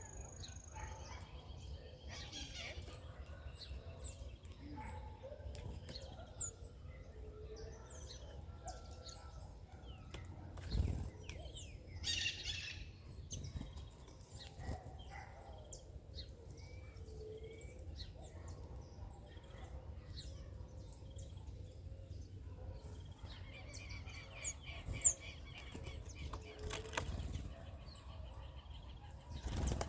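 Small wild birds chirping and calling at a backyard feeding spot, in scattered bursts with a run of quick repeated notes about three quarters of the way in. Two louder low fluttering thumps, about a third of the way in and at the end, over a steady low rumble.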